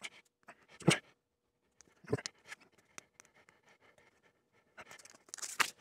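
Fingernails and tweezers scratching and clicking against a clear acrylic case panel while picking at its protective film: scattered faint scrapes and light taps, with louder clicks about a second in, around two seconds in and near the end.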